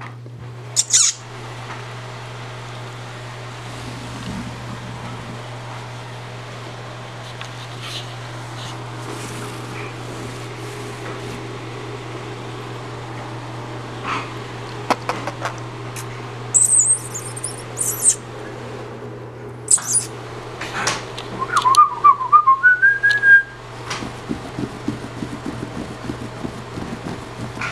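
Yorkshire terrier puppies giving scattered high-pitched squeaks and yelps, more of them in the second half, with a wavering, rising whine about two-thirds of the way through. A steady low hum runs underneath.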